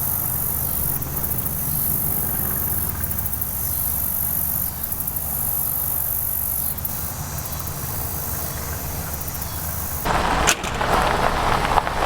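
A motor vehicle's engine running steadily, with insects chirping in a high, pulsing trill over it. About ten seconds in the engine sound stops and a louder rustling noise takes over.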